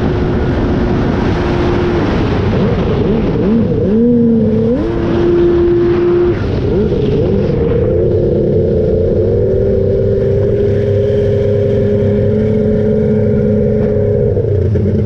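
Jet ski powered by a Kawasaki 1100 two-stroke engine, running under throttle. The revs dip and climb again several times in the first half, then hold high and steady and ease off near the end. Water rushes along the hull in the first few seconds.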